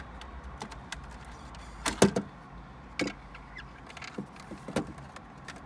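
Sharp plastic clicks and knocks from a car's dashboard trim panel being handled after it has been pried loose, the loudest a quick double knock about two seconds in, with a few lighter taps after.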